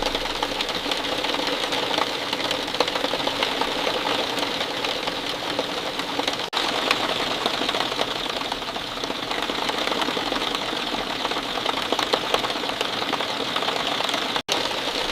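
Steady rain falling, a dense pattering of many separate drops. The sound cuts out for an instant twice, about six and fourteen seconds in.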